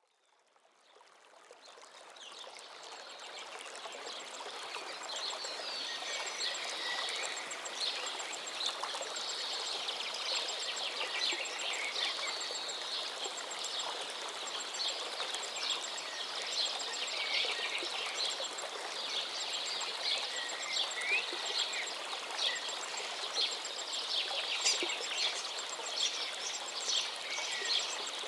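Flowing water, like a stream, with many small birds chirping over it, fading in from silence over the first few seconds.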